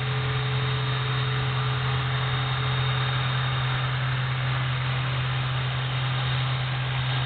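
EXI450 450-size electric RC helicopter hovering: a steady, even rotor drone with a thin high motor whine over it.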